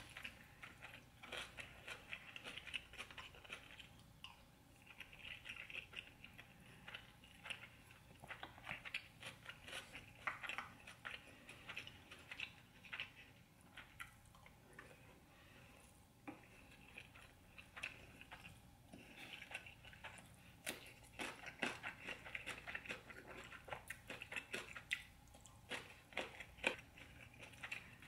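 Close-miked eating sounds: quiet wet chewing, lip smacks and small mouth clicks from someone eating stewed oxtail and rice, coming irregularly.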